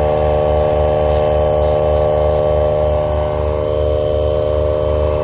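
Portable air pump running steadily while inflating a leaking tyre: a constant hum with a low pulse about three times a second.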